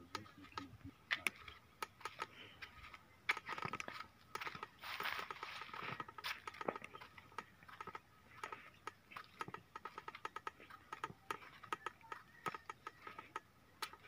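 Faint, irregular clicking and crackling, several clicks a second, with a denser rustling stretch about five seconds in.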